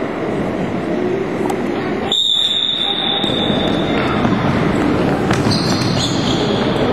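Floorball game in a sports hall: a steady din of players and onlookers with scattered sharp stick and ball clicks, and a long, high, steady whistle blast about two seconds in.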